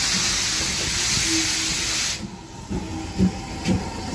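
Steam hissing steadily from GWR small prairie tank engine 5526, cutting off suddenly about two seconds in. Slow, regular low beats follow, about two a second, as the locomotive and its wagons move off at walking pace.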